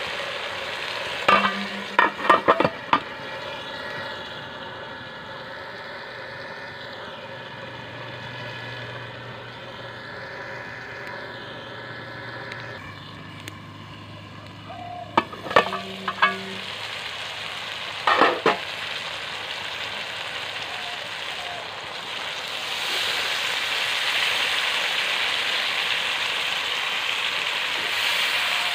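Fish curry simmering and sizzling in an aluminium kadai, broken by clusters of sharp metal clanks from its aluminium lid being handled, about two seconds in and again around the middle. In the last few seconds a louder, steady rush comes in as water is poured into the pan.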